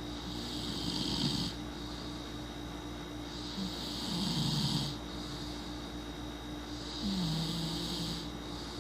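A person snoring: three snores, each a second or so long, coming about every three and a half seconds over a steady low hum.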